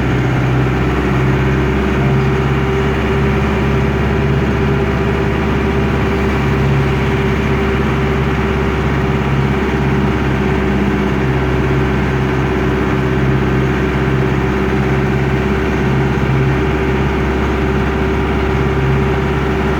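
Otokar M-2000 minibus's air-cooled Deutz F4L912 four-cylinder diesel running steadily at an even pitch, heard from inside the cabin.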